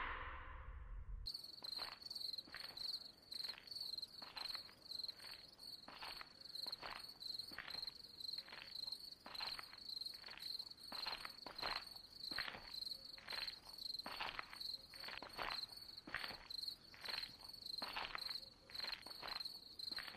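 Crickets chirping steadily at night, with the regular footsteps of two people walking on an asphalt road, a few steps a second. The tail of a scream fades out right at the start.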